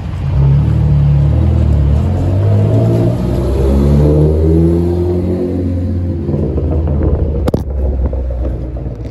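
A car's engine running as it drives past close by, its note rising over the first few seconds and then falling away. A sharp knock comes about seven and a half seconds in as the camera is handled.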